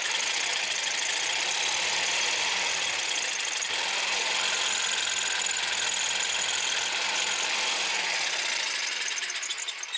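Corded Black+Decker jigsaw running steadily, its blade cutting through a small piece of wood clamped in a bench vise; it stops near the end.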